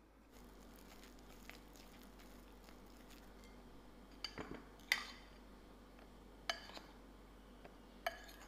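Utensils and bowls clinking against a glass mixing bowl while cookie dough is mixed and flour is added: a handful of sharp clinks, each ringing briefly, the loudest about five seconds in. Between them there is faint scraping of the soft dough.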